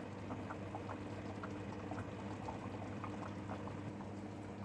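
Chicken curry thickened with coconut milk bubbling in a stainless steel saucepan: a steady run of small bubbles popping, several a second.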